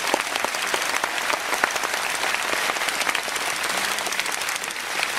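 A large audience applauding: steady, dense clapping from many hands.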